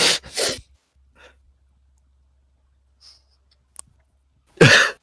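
Short harsh bursts of breath from a person, one at the start and a louder one near the end, like coughs or explosive laughs, with near silence between.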